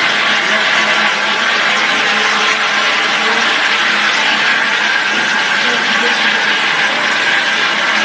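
Automatic dishwashing-detergent filling machine running: a loud, steady mechanical rattle and hiss with a low hum underneath.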